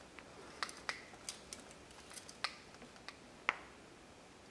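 About ten faint, sharp clicks and ticks from a beam-style torque wrench and socket as a seized spark plug in a Ford 5.4 Triton cylinder head is worked back and forth. The loudest click comes about three and a half seconds in.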